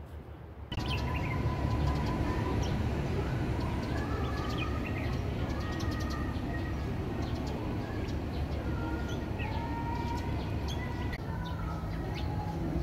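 Small birds chirping and calling, short high chirps mixed with longer whistled notes, over a steady low rumble. The sound starts suddenly a little under a second in.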